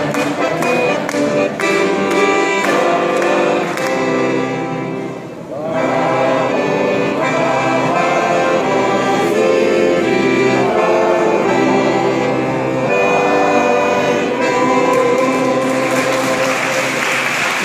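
Men's choir singing in harmony, accompanied by violin and accordion. Near the end the song closes and applause begins.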